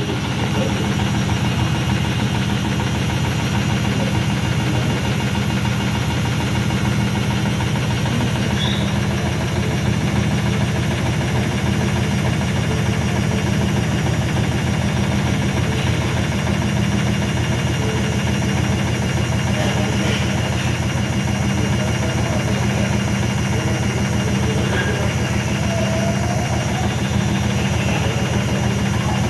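IFB washing machine in its spin cycle, making a very loud noise: a steady low hum with a fast, even rattling vibration that does not let up.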